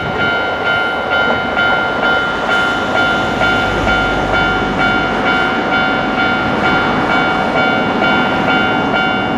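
Japanese level-crossing warning bell ringing in a steady repeated beat, about twice a second, over the running noise of a passing train.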